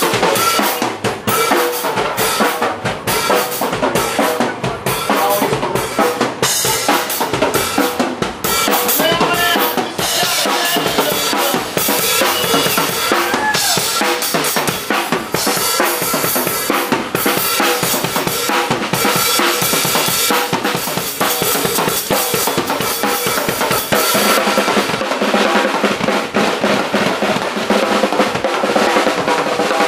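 Drum kit solo played live: rapid, dense hits on bass drum and snare among crashing cymbals, with no break.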